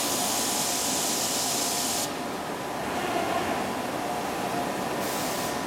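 Inca flatbed inkjet printer running with a steady mechanical hum and a faint even tone, overlaid by a loud airy hiss for the first two seconds that comes back briefly near the end.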